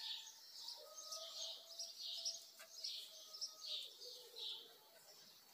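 Faint small birds chirping in the background, short calls repeating every half second or so, with a single faint click about halfway through.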